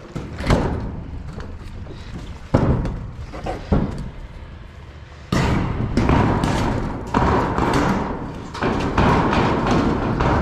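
Thuds and bangs on corrugated metal roofing as a roof panel is worked and lifted. From about five seconds in comes a long, loud, rough noise that swells several times.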